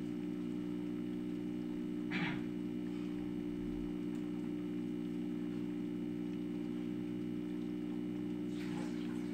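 Steady electrical mains hum, with a faint short noise about two seconds in and another near the end.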